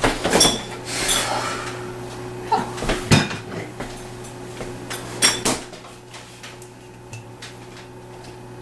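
Kitchenware clattering: several sharp clanks of dishes or metal utensils with a brief ringing, bunched in the first half, then only a faint steady hum.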